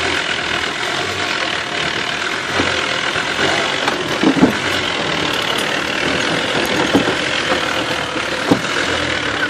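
Mercedes 300D five-cylinder diesel engine running steadily, heard from inside the Range Rover's cabin as it crawls over rock. A few sharp knocks stand out, about four, seven and eight and a half seconds in.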